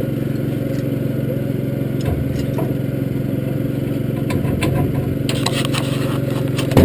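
Race car's 355 crate small-block V8 idling steadily, heard from inside the cockpit. Rattling clicks join in over the last couple of seconds, ending in one sharp, loud knock.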